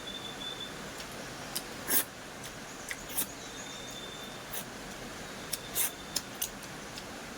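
Close-up eating sounds of a person chewing a meal, with about eight short, sharp smacks and clicks scattered through it, the loudest about two seconds in, over a steady background hiss.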